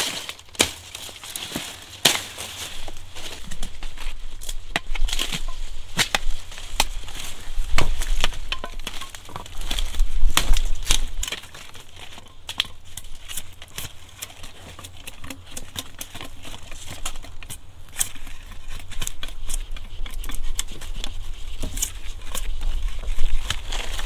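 A hooked billhook-style blade chopping and trimming a green sugar cane stalk: irregular sharp cracks and knocks of the blade on the cane. Dry cane leaves crackle and rustle throughout, with the heaviest chopping in the middle.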